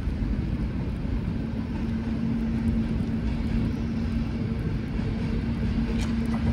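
Locomotive-hauled intercity passenger train approaching along the track: a low rumble, with a steady hum coming in about a second in and growing stronger as it nears.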